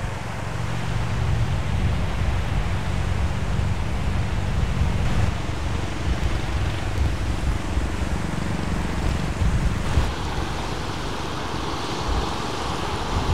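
Gusty wind buffeting the microphone: a rumbling, fluctuating rush of noise. A faint low hum sits underneath for the first few seconds.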